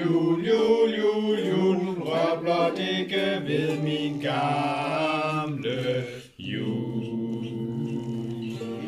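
A family singing a Christmas song together without accompaniment, several voices carrying one melody. The singing breaks off sharply for a moment about six seconds in, then goes on.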